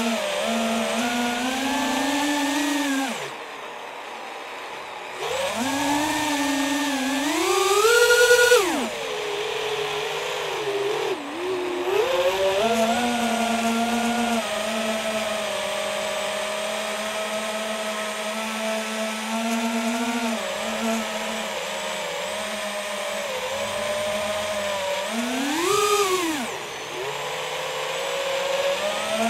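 FPV quadcopter's brushless motors and propellers whining, recorded by its onboard camera, the pitch rising and falling with the throttle. The motors drop away for about two seconds near the start, climb sharply to a high whine about eight seconds in, then hold a steadier note with one more brief surge near the end.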